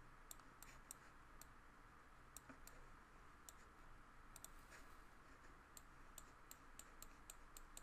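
Faint, irregular clicks of a computer mouse over near-silent room tone, coming more often near the end.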